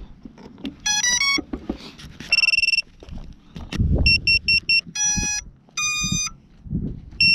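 A 7-inch FPV quadcopter's power-up beeps: a quick rising three-note tune about a second in, then a long beep, a run of four short beeps, two longer tones and three short beeps near the end, the typical signalling of the drone's electronics as it is readied to fly. Low knocks of handling run underneath.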